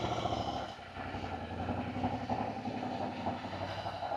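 Royal Enfield GT 650's 648 cc parallel-twin engine running at low revs with an even, steady pulse as the motorcycle is ridden in at walking pace.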